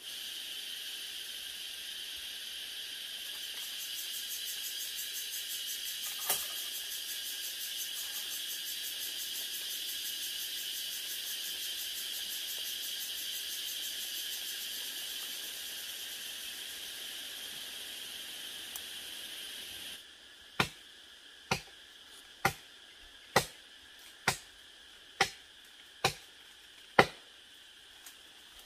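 A steady, high-pitched insect chorus for about twenty seconds. It breaks off abruptly, followed by eight sharp chopping blows, about one a second.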